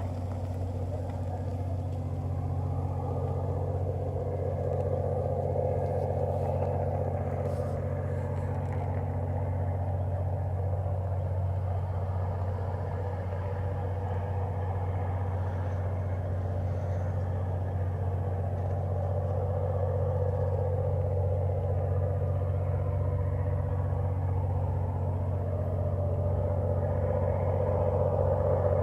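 GM diesel locomotive engine running steadily with a deep, even hum, growing a little louder near the end.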